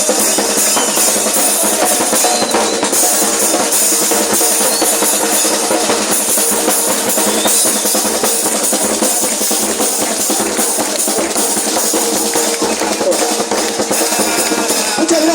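Murga percussion (bass drum, snare drum and cymbals) playing a steady, driving drum rhythm with no singing.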